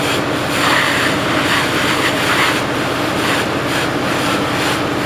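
Fire hose spraying water onto a burning car: a hissing rush that swells and eases, over a steady engine drone.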